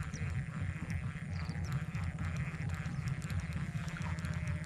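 A chorus of frogs calling steadily from flooded marshland, over a continuous low rumble.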